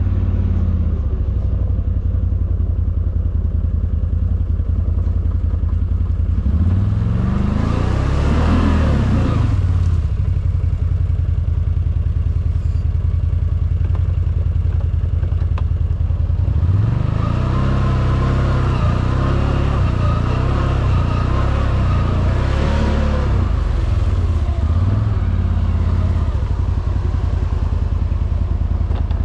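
CFMOTO G3 1000 engine running on the move. Its pitch climbs and falls off twice as it accelerates and eases back: briefly about a quarter of the way in, and for longer just past the middle.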